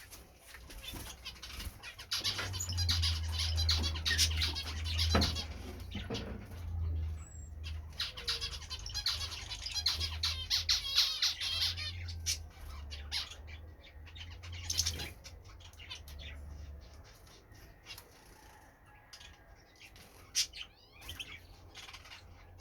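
European goldfinches chirping and twittering in quick runs, with wings fluttering. The activity thins out over the last few seconds.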